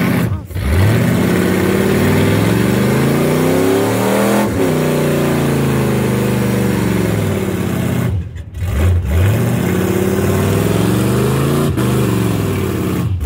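Big-block V8 engine of an old pickup truck held at high revs in a burnout, its rear tyres spinning on the pavement. The revs rise and fall throughout, dropping sharply about half a second in and again around eight seconds in before climbing again.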